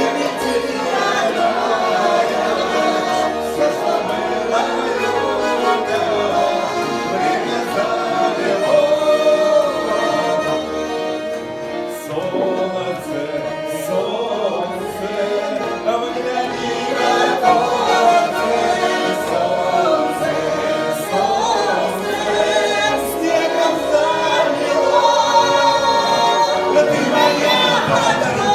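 Singing of a Russian folk-style song to the accompaniment of a garmon (Russian button accordion).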